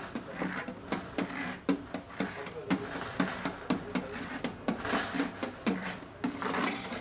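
A quick run of sharp knocks, about two to three a second, with a voice in the background.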